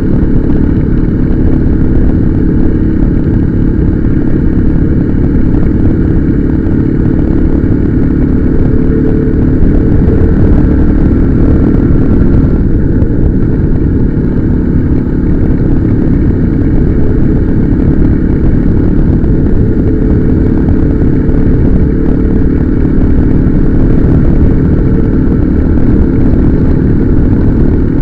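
Motorcycle engine running steadily while riding, with a dense low rumble under it.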